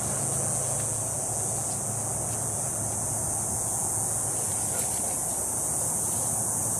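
Insects buzzing in a steady high drone that carries on without a break, over a soft outdoor background.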